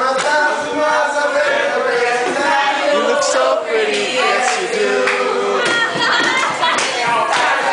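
A group of young people's voices singing together loosely, with talking mixed in.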